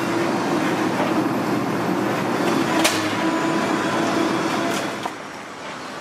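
Heavy demolition machinery running steadily, with a sharp knock about halfway through and a fainter one near the end, after which it gets quieter.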